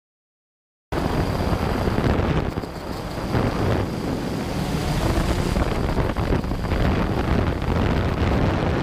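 Wind rushing on the microphone over the engines of dirt bikes and a quad riding a motocross track, cutting in suddenly about a second in. A faint steady high whine runs through it.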